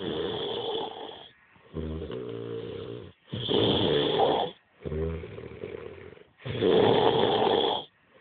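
A heavily drunk man snoring in his sleep, about three slow breath cycles: low, pitched rattling stretches alternate with louder, rasping breaths, each cycle roughly three seconds long.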